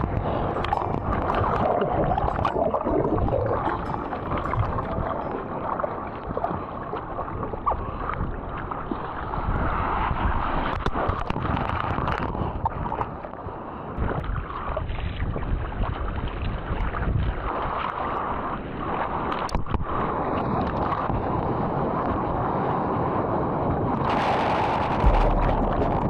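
Ocean whitewater rushing and churning around a surfer's action camera, muffled, with gurgling as the camera goes under into bubbling foam at times.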